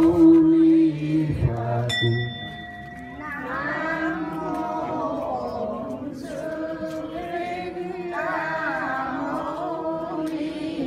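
Vietnamese Buddhist devotional singing with musical accompaniment, voices chanting a melody; a single high ringing tone, like a small bell, sounds about two seconds in.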